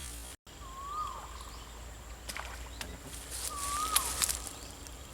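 A bird calling outdoors: a short whistled note that rises and then drops, repeated about every two and a half seconds. A few sharp clicks and a brief rustling hiss come near the middle.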